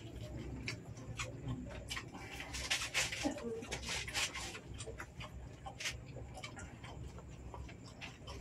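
Eating sounds of people eating oysters by hand: wet chewing and lip smacks with scattered sharp clicks and clinks of oyster shells. A steady low hum runs underneath.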